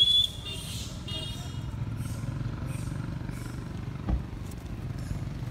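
A motor vehicle engine running at idle, a steady low, fast-pulsing rumble. A brief, loud, high-pitched squeal comes right at the start, and a single thump about four seconds in.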